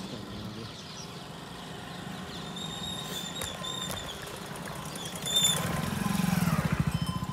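Motorcycles approaching on a dirt track, the nearest passing close by in the last two seconds with a loud, rapidly pulsing exhaust. A brief high ring sounds just before it passes.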